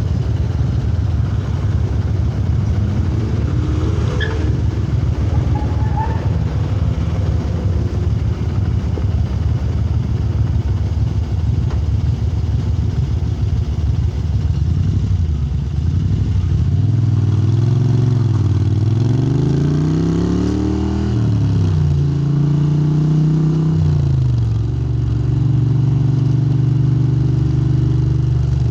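Moto Guzzi V-twin motorcycle engine with Lafranconi silencers running. For the first half it gives a steady, noisy engine note. Then the revs rise and fall twice before settling into a steady note.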